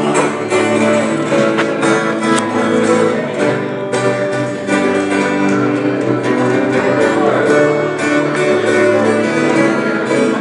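Several acoustic guitars strumming and picking chords together in an instrumental passage of a live song, with no singing.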